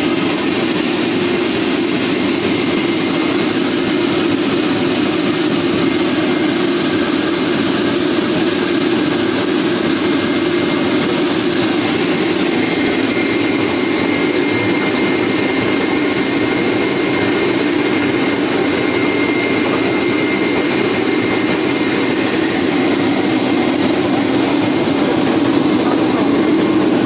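A ⌀70 LDPE blown film extruder line running in production: a steady, loud, unchanging machine drone. A faint high whine comes in around the middle and fades again later.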